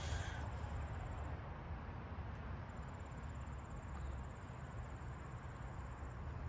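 Quiet room tone: a steady low hum with a faint, thin high-pitched whine that comes and goes.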